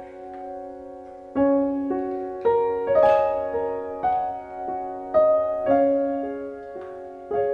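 Slow solo piano background music, single notes and soft chords struck about once a second and left to ring, with a few light clacks of pliers being set down on a cutting mat.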